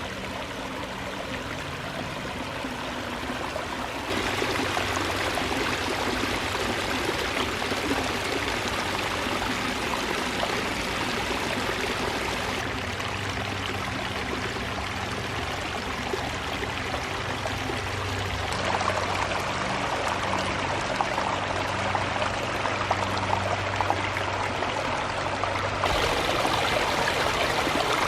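Water from a pondless waterfall running and splashing steadily over stone. It gets louder about four seconds in, and its tone shifts suddenly a few more times.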